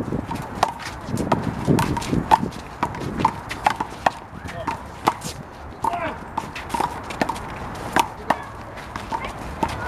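Rubber handball rally: the ball is slapped by hands and smacks off the wall and pavement, giving an irregular run of sharp pops about two a second.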